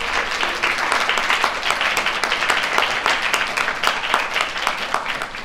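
Audience applauding: many people clapping together, dying down near the end.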